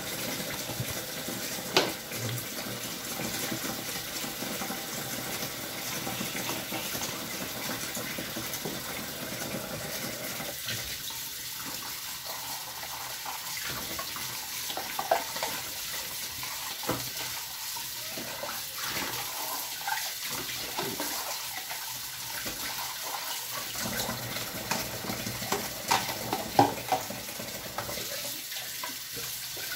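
Kitchen tap running into a stainless steel sink while things are washed by hand under the stream. A few sharp knocks, several of them near the end.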